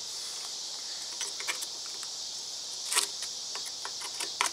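Light metal clicks and scrapes of a screwdriver working at a U-joint cap and its lock ring in a driveshaft yoke, with one sharper click about three seconds in, over a steady high hiss.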